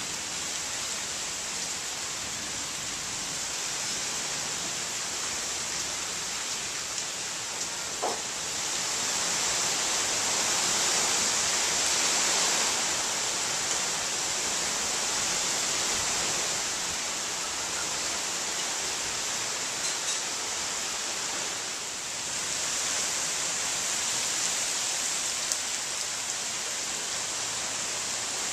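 Heavy rain pouring steadily down through tree foliage during a thunderstorm downpour. The rain swells louder for a few seconds about a third of the way in, and again about four-fifths of the way through.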